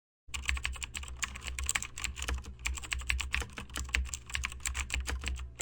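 Rapid, irregular clicking of keys, as in typing on a computer keyboard, over a steady low hum. It starts abruptly a moment in, after a brief silence.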